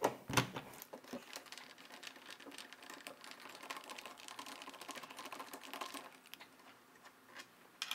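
Rapid light clicking of a hand screwdriver being turned on a screw in the 3D printer's frame, loosening it to take out the nut. The clicking runs for about five seconds and stops about six seconds in, with one sharp click near the end.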